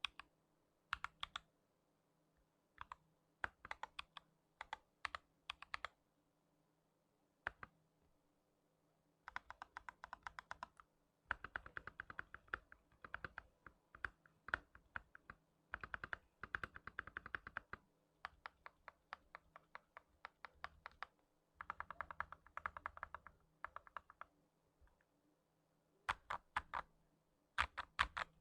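Typing on a Kailh FL Esports 68 mechanical keyboard fitted with Gazzew Boba U4T tactile switches. Scattered single keystrokes give way, about a third of the way in, to fast bursts of typing, which thin out again near the end.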